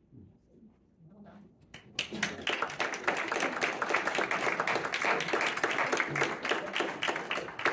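A small audience applauding, starting about two seconds in and carrying on as steady, dense clapping.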